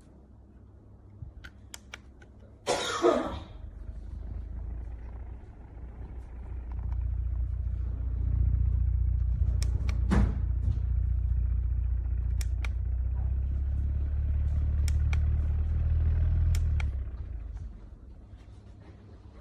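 Portable rechargeable fan running, a low steady rumble that builds up, holds for about ten seconds and then dies away, with a few sharp clicks and a short rustling burst near the start.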